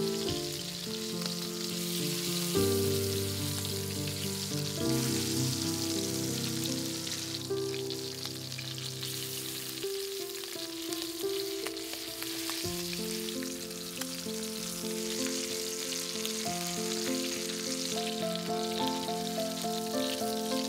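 Chicken drumsticks frying in a pan, a steady sizzle, with background music playing underneath.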